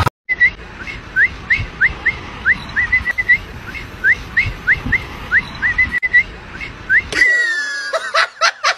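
A person whistling a string of short rising notes, about three a second with a few pauses, the way one calls a dog over. Near the end comes a longer falling whistle, then a run of quick sharp sounds.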